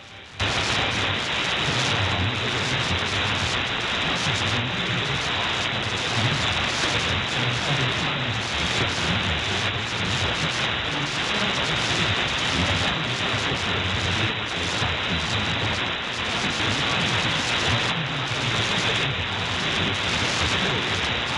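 Shortwave receiver in AM mode tuned to 9860 kHz in the 31-metre band, giving loud, steady hiss and static with a weak signal buried in it, which could be Radio Free Asia or the Chinese Firedrake jammer relaying CNR1. The audio jumps much louder about half a second in as the volume is turned up.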